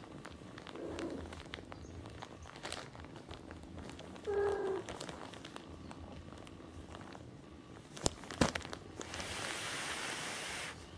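A kitten gives a short, level mew about four seconds in, after a fainter one near the start. A couple of sharp knocks follow, then about two seconds of steady hissing noise that stops suddenly.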